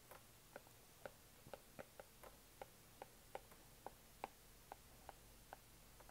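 Faint stylus taps on a tablet screen during handwriting: short, irregularly spaced clicks, about three a second.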